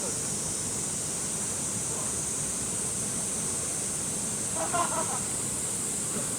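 Steady rush of a valley stream, with an even high hiss above the water. A brief call or voice sounds once, about five seconds in.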